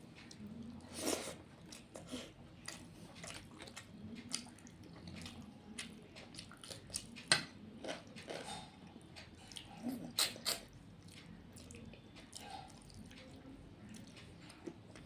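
A person chewing a meal of rice and curry close to the microphone: irregular wet smacks and clicks of the mouth, with a few louder ones about a second in, around the middle and at about ten seconds.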